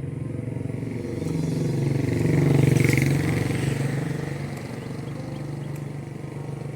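A motorcycle engine passing by, growing louder to a peak about three seconds in and then fading.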